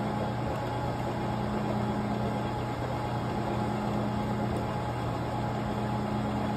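Vertical milling machine running in slow back gear, its roughing end mill cutting a notch into a metal bracket as the table is hand-fed: a steady motor and spindle hum under the noise of the cut.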